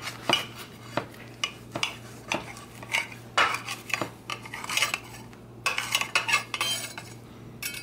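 A large kitchen knife sawing back and forth through a cheeseburger on a pretzel bun, in repeated short strokes, with the blade scraping and knocking on the plate beneath.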